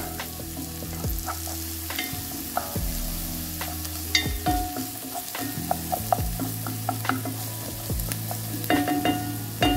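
Chopped ginger, garlic and onion sizzling as they brown in a hot frying pan, with a wooden spatula stirring them and tapping and scraping against the pan in short, irregular clicks.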